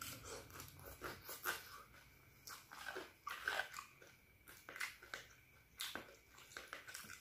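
Close-up eating sounds of a person chewing fried instant noodles: a string of short, irregular wet smacks and bites.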